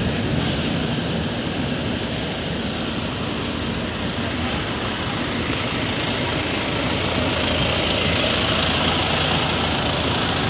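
Steady traffic and engine noise, with a brief high-pitched squeak starting about five seconds in.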